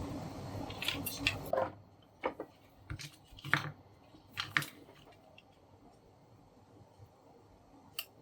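A steady rushing noise that stops about two seconds in, then a scattering of small sharp clicks and taps, about eight, from small objects being handled.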